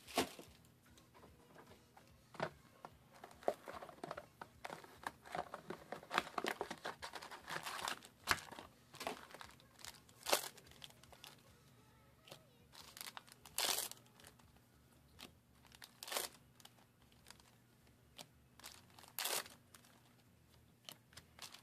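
Foil trading-card booster pack wrappers crinkling in the hands as packs are torn open, with irregular sharp crackles between quieter stretches.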